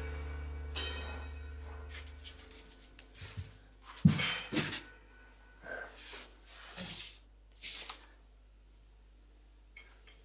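The band's last keyboard chord dies away, then a dancer's body and bare feet thump and brush on the stage floor, with one louder thud about four seconds in.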